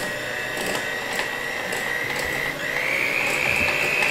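Electric hand mixer whipping heavy cream in a glass bowl: a steady motor whine that steps up in pitch about two and a half seconds in, with faint ticks now and then.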